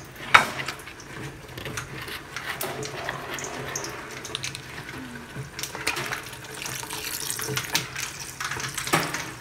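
Liquid splashing in a metal cooking pot as it is poured in and stirred with a wooden spoon, with a sharp knock about half a second in.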